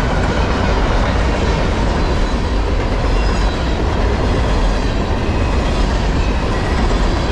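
Freight train's cars rolling past at close range: a steady rumble and rattle of steel wheels on the rails, with no let-up.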